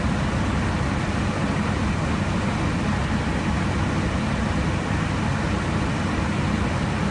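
Steady in-flight noise heard from inside an aircraft at cruise: a constant rush of airflow with a low engine drone, unchanging throughout.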